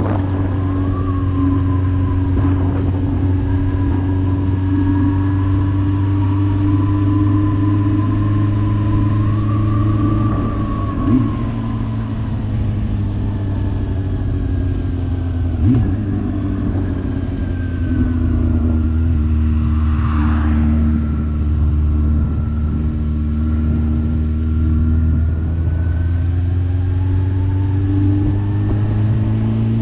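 Motorcycle engine running at a steady cruise while riding, its pitch easing down somewhat past the middle and climbing again near the end as speed changes, with a couple of brief knocks.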